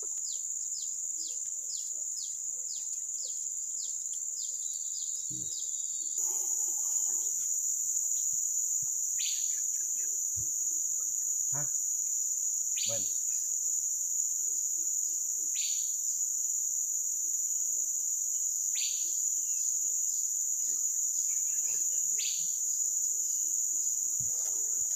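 Insects in the riverside rainforest keep up a steady, high-pitched drone, which gets louder about six seconds in. Over it, a bird repeats a short falling call every three seconds or so, and a few faint knocks come from the wooden boat.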